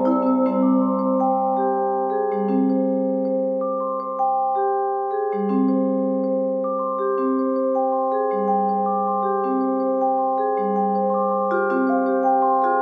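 Vibraphone played with yarn mallets: slow chords of long ringing notes that overlap and sustain, with a new note or two struck about every second.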